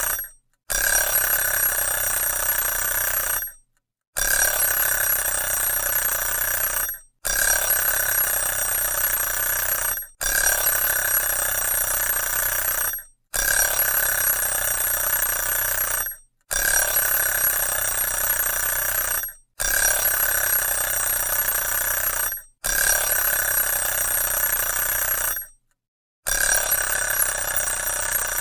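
Alarm clock ringing in repeated bursts, each a rattling ring of about three seconds with a short break of about half a second between them.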